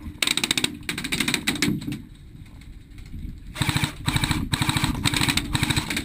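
Airsoft electric guns firing on full auto: rapid strings of shots, several short bursts in the first two seconds, a brief lull, then a long continuous burst through the second half.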